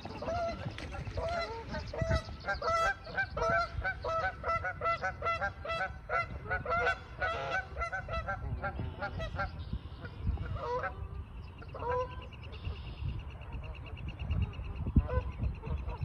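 Canada geese honking: a fast run of repeated honks for about ten seconds, then a few single honks spaced out toward the end.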